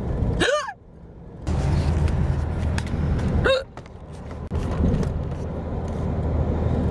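Two hiccups about three seconds apart, each a short sharp 'hic' that jumps up in pitch, from a man in a long bout of hiccups. A steady low car-cabin drone runs underneath.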